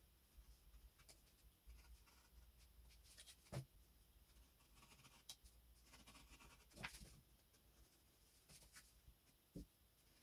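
Near silence, with faint light scratching and three soft, brief knocks spread through it.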